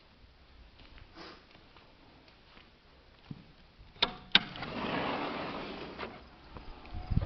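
Sliding glass patio door being unlatched and opened: two sharp clicks from the handle and latch about four seconds in, then the door panel rolling along its track for about a second and a half. A couple of low thumps near the end.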